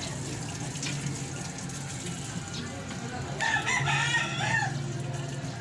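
A rooster crowing once, starting about three and a half seconds in, over a steady low hum.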